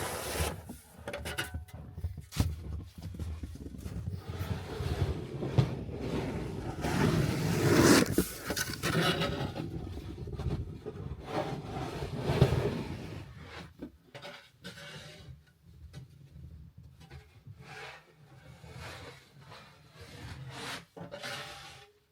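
Irregular scraping and rubbing with scattered knocks, louder for the first half and then quieter and sparser.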